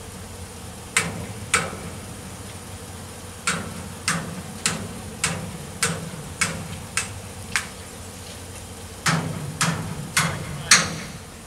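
Hammer blows on steel under a stopped freight car, at the wheel truck, as a worker deals with dragging equipment. There are about fourteen sharp, ringing strikes a little over half a second apart, in three runs of two, eight and four; the last strike is the loudest. A steady low engine hum runs underneath.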